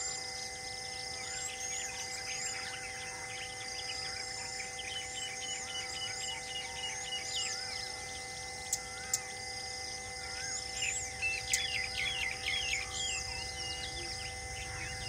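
Many small birds chirping and whistling together, with a fast run of repeated chirps a little past the middle and two sharp clicks about nine seconds in, over a faint steady hum.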